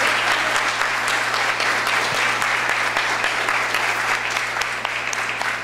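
Audience applauding, a dense crowd of clapping hands that slowly dies down near the end.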